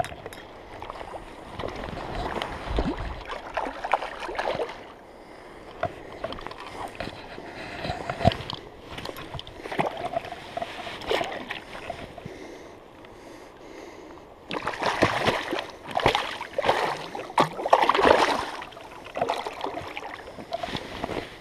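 Water splashing and sloshing as a hooked grilse, a young Atlantic salmon, thrashes in the shallows while being grabbed by hand. The splashing comes in irregular bursts and gets louder and busier about two-thirds of the way through.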